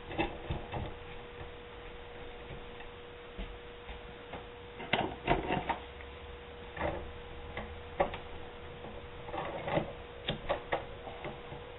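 Irregular clicks and light knocks of gloved hands handling a coiled air hose and its brass fittings, a few in quick clusters, over a steady faint hum.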